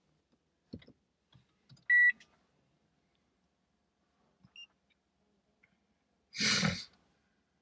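Toyota Sienta hybrid's single short electronic beep as the push-start button brings the car to ready, with no engine running. A few faint clicks come before it, and a short burst of rustling noise comes near the end.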